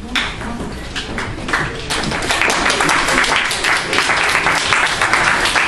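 Audience applauding: a dense patter of many hands clapping that builds over the first couple of seconds and then holds strong.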